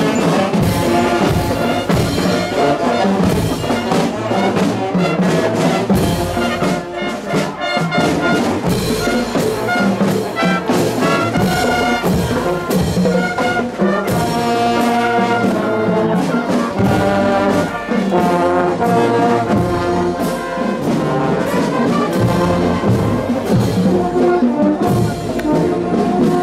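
Marching band playing: saxophones, trumpets and horns sounding a tune together, with regular percussive hits keeping the beat.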